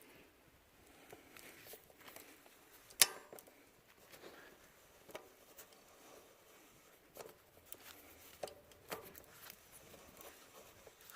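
Scattered light clicks and knocks of a mountain bike's rear wheel and derailleur being handled as the wheel is taken off, with one sharp click about three seconds in.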